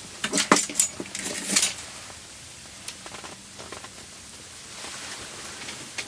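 Close handling noises: a quick run of rustles and light clinks in the first second and a half, then quieter with a few faint ticks.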